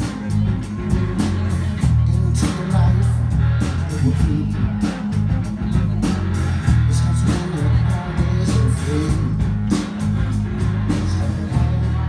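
Music with a steady beat and heavy bass notes.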